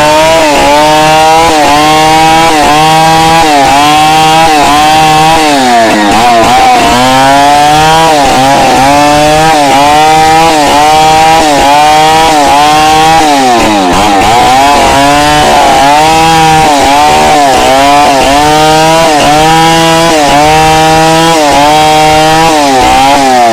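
Two-stroke chainsaw running at high revs while ripping a log lengthwise. Its pitch rises and falls in a steady rhythm a little faster than once a second as the bar is worked through the cut. The revs sag deeply twice under load, and the saw falls away toward idle at the very end.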